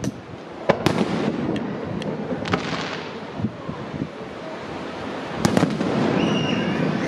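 Aerial firework shells bursting, a series of sharp bangs: several close together in the first second or so, then two more in quick succession about five and a half seconds in.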